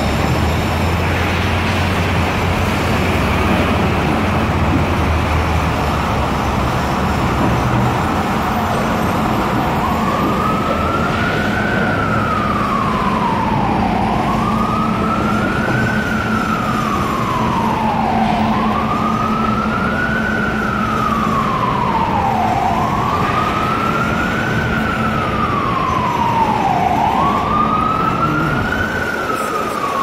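Busy city street traffic with a heavy engine running; about ten seconds in, an emergency vehicle's siren starts wailing, rising and falling in slow cycles of about four seconds, five times.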